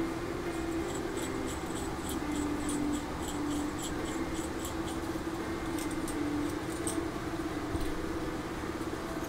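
Hand-twisted pin vise drill bit cutting into a plastic model kit part: a quick run of light ticks, about four to five a second, that stops about seven seconds in. A steady low hum runs underneath.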